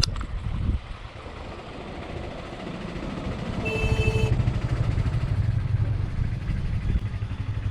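A motorcycle engine running, getting louder about three and a half seconds in, with a short horn beep at about four seconds.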